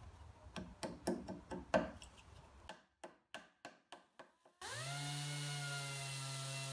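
A small hammer taps wooden plugs into screw holes in a pine shelf side, a run of light, quick knocks. About four and a half seconds in, a handheld electric sander with a round pad starts up and runs with a steady hum.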